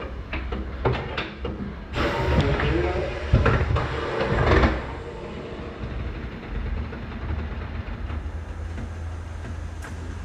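Tyre-changing machine in use: metal clanks and knocks, then about three seconds of loud rushing noise, then a low steady hum.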